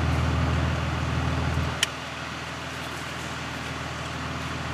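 A low, steady motor drone with a slight throb, which drops off sharply about two seconds in as a sharp click sounds; a fainter hum carries on after.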